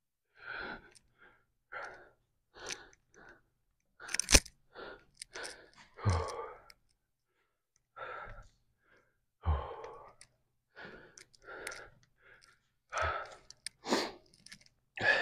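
A man breathing hard, winded after a set of sumo squats: a run of separate heavy puffs and sighs, about one a second, a few with a low voiced groan in them.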